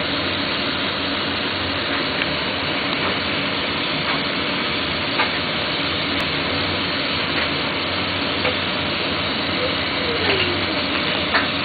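Lampworking bench torch flame hissing steadily while a glass rod is heated in it, with a few faint clicks.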